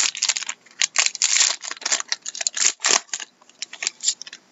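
A sealed pack of 2012-13 Panini Dominion hockey cards being torn open by hand: a series of irregular crinkling rips and rustles of the wrapper.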